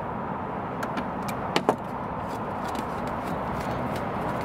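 Pliers and a plastic thumb-screw fastener clicking as the fastener is worked loose on a power wheelchair's battery cover: a few sharp clicks in the first two seconds, over a steady background hum.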